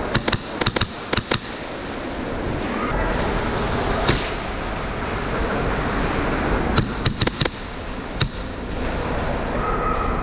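Airsoft guns firing: short bursts of sharp pops, a quick cluster in the first second or so, a single shot about 4 s in, another burst around 7 s and one more near 8 s, over steady background noise.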